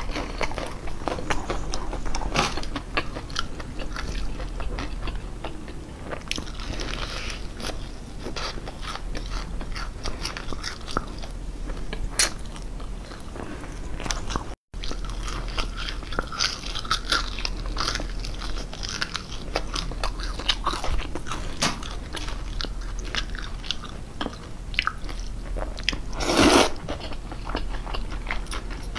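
Close-miked eating of crispy fried chicken: steady biting, crunching and chewing with many small crisp crackles. Near the end, one loud slurp of cold buckwheat noodles.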